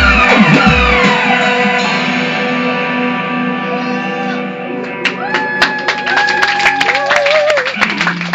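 Live rock band ending a song: guitar notes slide and ring over the bass, the chord fades into sustained held notes, and clapping breaks out about five seconds in.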